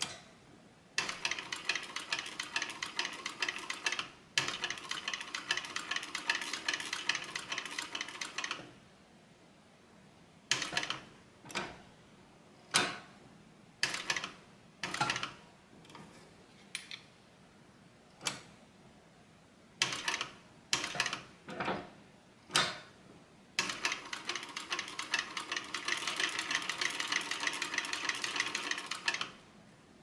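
Industrial cylinder-arm sewing machine stitching leather: a long run of fast, even stitches with a short pause partway, then a string of short bursts of a few stitches at a time, then another long run near the end.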